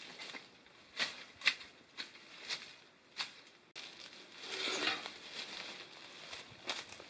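Brambles and vines being cleared with a hand cutting tool: a row of sharp snips or snaps about every half second in the first few seconds, then a spell of rustling leaves and stems being pulled about, and one more snip near the end.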